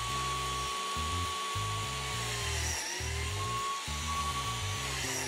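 Makita 18V cordless biscuit joiner running with a steady high whine. The pitch sags twice, about two and a half seconds in and near the end, as the blade plunges into the board to cut a biscuit slot, and recovers after each cut. Background music plays underneath.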